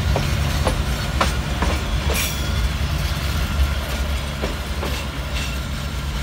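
Railway coaches and a boxcar rolling past, their wheels clacking over the rail joints above a steady low rumble. The rumble eases slightly near the end as the last wagon goes by.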